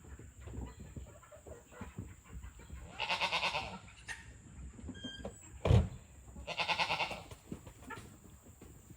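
Two loud farm-animal calls, each under a second, about three seconds apart, with a sharp thump between them.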